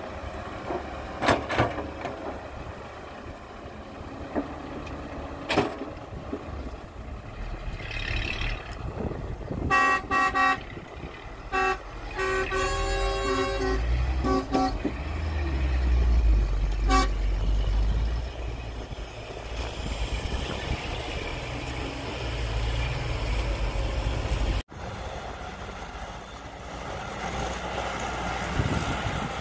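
Diesel engines of an excavator and a loaded dump truck running, with a few sharp knocks in the first six seconds. About ten seconds in, a vehicle horn gives two short toots, then a longer run of toots and one more a little later, while a deep engine rumble builds as the dump truck pulls away.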